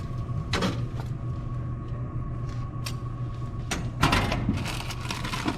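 Vending machine dispensing a selection: a steady machine hum with a few scattered clicks, then a louder clatter about four seconds in as the item drops into the pickup tray.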